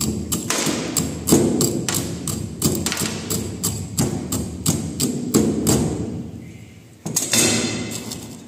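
A steel tamping rod strikes aggregate chips in a small metal cylindrical measure, giving repeated knocks about two to three a second. This is the tamping of a layer in the aggregate impact test, packing the chips down to drive out the voids. Just after seven seconds comes one louder clatter as the rod is laid down in an enamel bowl.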